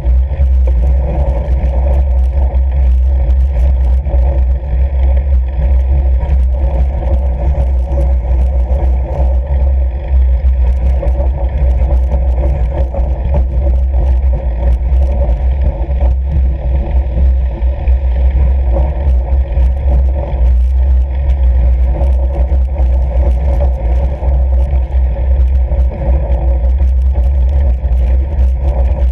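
Fat bike rolling steadily over snow-covered lake ice: a loud, constant low rumble of tyre and wind noise on the camera's microphone, with many small crackles from the tyres on the crusted snow.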